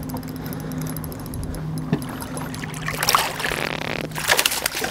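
A hooked bass splashing and thrashing at the surface beside a bass boat as it is landed by hand, the splashes starting about three seconds in and becoming the loudest sound. Under it a boat motor hums steadily.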